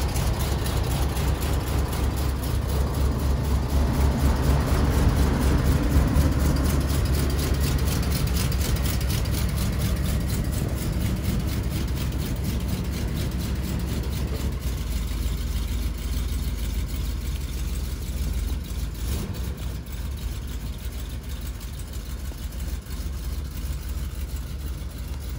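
Older motorhome's engine idling steadily with a low rumble, growing gradually fainter over the second half.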